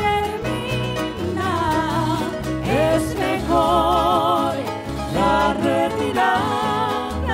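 Live Chilean folk music, a cueca: a voice sings long held notes with wide vibrato in several phrases over instrumental accompaniment with a steady low pulse.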